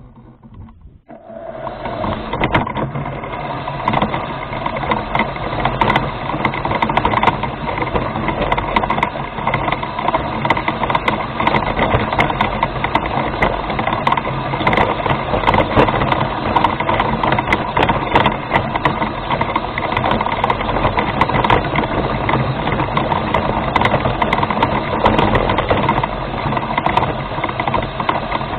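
Remote-controlled rover's motors and gearing running steadily as it drives, starting about a second and a half in, with scattered clicks and rattles.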